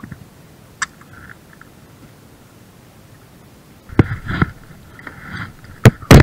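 Knocks and bumps: after a quiet stretch with one short tick, a cluster of sharp knocks begins about four seconds in, the loudest two coming close together near the end.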